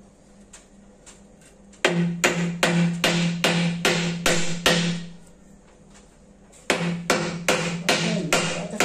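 Hammer blows on wood in two quick runs of about two and a half strikes a second, each blow ringing briefly: about eight strikes, a short pause, then about six more.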